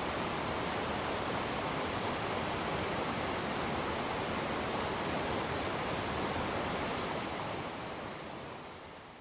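River water running over rocks, a steady rushing noise that fades away near the end.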